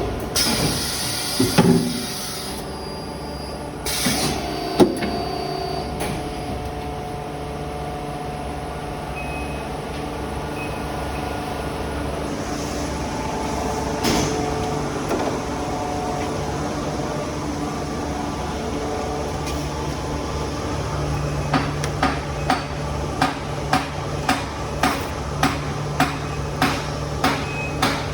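Cold forging machinery running with a steady hum and occasional metal clanks. About two-thirds of the way through, a regular rhythm of sharp impacts begins, about two a second: the forming strokes of a cold forging press.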